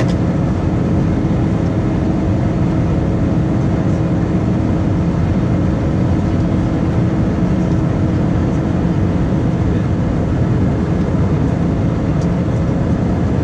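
Steady cabin noise of an Airbus A320 in flight, heard from a window seat over the wing: the jet engines and rushing air make a constant low roar with a steady hum through it.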